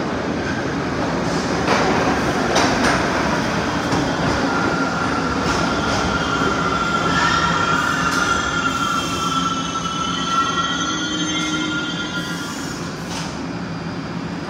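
New York City subway train pulling into a station and braking to a stop. A high squeal starts about four seconds in and dies away as the train halts near the end.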